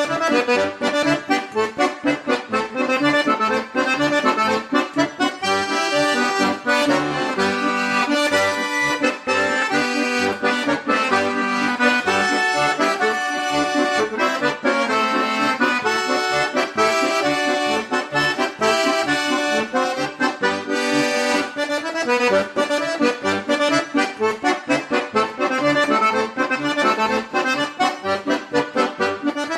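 Lively accordion music with a steady beat underneath, playing throughout.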